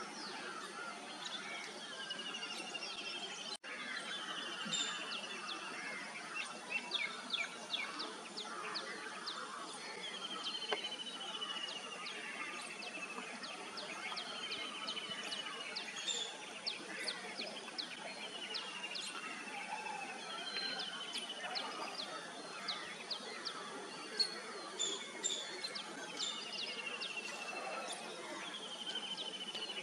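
Wild birds calling outdoors: a clear falling whistle, about a second long, repeats every few seconds over many short, sharp chirps and steady background noise.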